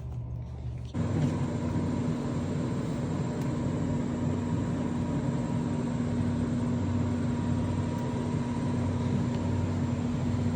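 A steady machine-like hum with a low drone and a constant higher tone, starting abruptly about a second in and holding unchanged.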